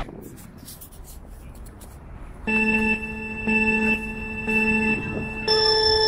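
Electronic countdown beeps in a race-start pattern: three short, equal beeps a second apart, then a higher, longer beep about five and a half seconds in. Before the beeps there is only a faint hiss of wind.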